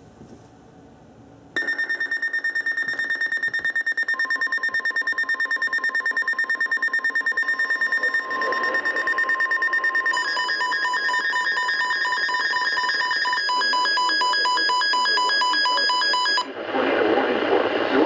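Electronic emergency alert tones for a National Weather Service tornado warning. A high, rapidly pulsing tone starts about a second and a half in, a lower tone joins a few seconds later, and the beep pattern changes twice before cutting off abruptly. A voice begins reading the alert near the end.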